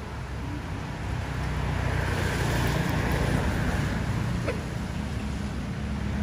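Road traffic noise: a vehicle passing on the road, its engine and tyre noise swelling about two seconds in over a steady low rumble.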